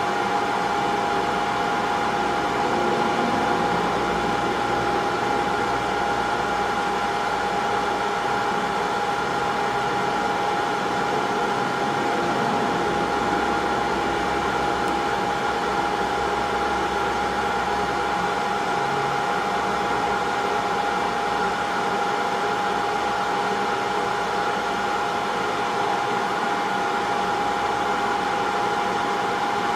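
Hot air rework station blowing steadily with a constant high whine, heating the solder to lift an HDMI port off a console circuit board.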